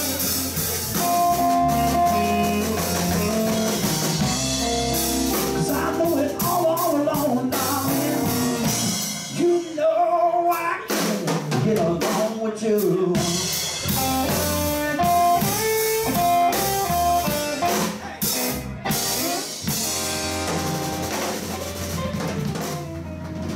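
Blues band playing live: a Telecaster-style electric guitar over electric bass and drum kit. The bass and drums drop out briefly about ten seconds in while the guitar carries on.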